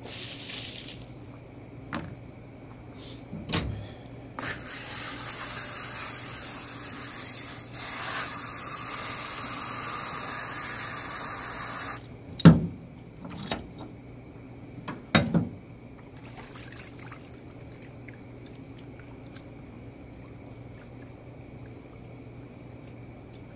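Water spraying from a garden-hose nozzle into a plastic tub, a brief burst and then a steady spray of several seconds that cuts off about halfway through. A few sharp loud knocks follow, then faint sloshing as hands work fish fillets in the water.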